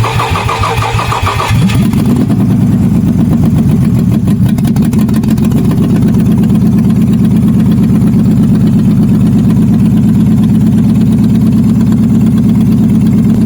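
Nissan Xterra engine cranking on the starter for a little under two seconds, then catching and running steadily at idle. The owner puts the slightly hard start down to a faulty bank 1 camshaft position sensor.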